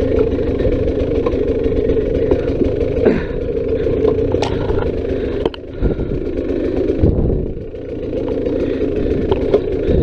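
Dirt bike engine running steadily on a rough trail section, with sharp knocks now and then.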